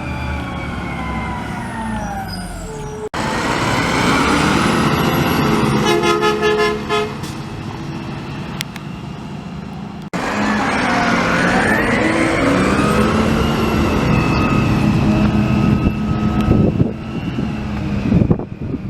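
Garbage truck squealing: high, siren-like tones that slide down and back up over its running engine. The squeal is heard in three separate takes, cut together abruptly.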